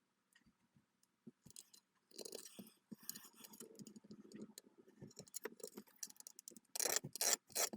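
Light clicks, taps and scratching as plastic model parts are handled and marked on a workbench, with a louder run of sharp clicks near the end.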